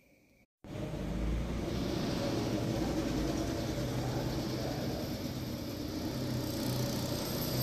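Steady rushing background noise with a faint low hum. It starts abruptly after a brief silence about half a second in.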